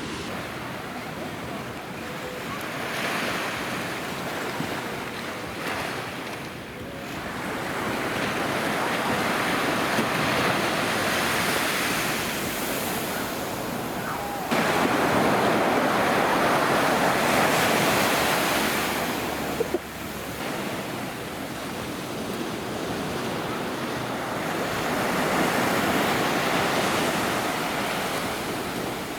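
Ocean surf washing onto the shore, a steady rush that swells and eases several times, with a louder stretch a little past the middle.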